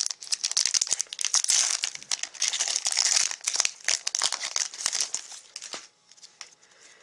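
Foil wrapper of a Magic: The Gathering booster pack crinkling and tearing as hands pull it open and work the cards out, a dense crackle that stops about six seconds in.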